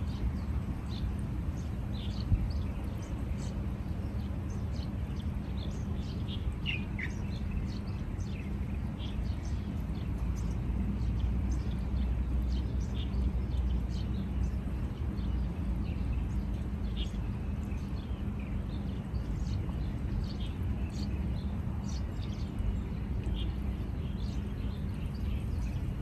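Small birds chirping, many short high calls scattered throughout, with one falling call about seven seconds in, over a steady low rumble.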